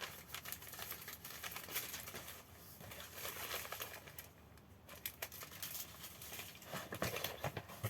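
Plastic packaging crinkling and rustling as items are unpacked from a parcel, in short irregular crackles with a quieter lull about halfway through.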